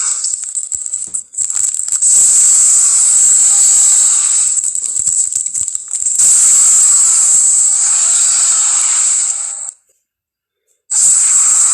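Film monster sound effect of a prehistoric reptile hissing: loud, rattling hisses in several long stretches, cut by a full second of silence near the end.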